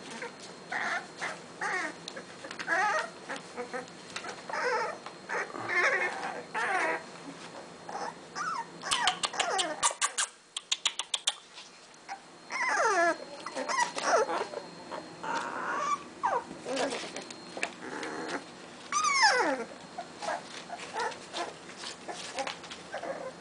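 Blue-nose pit bull puppies whining and yelping as they wrestle in play: many short, high calls, several falling in pitch. A quick run of sharp clicks comes about nine seconds in.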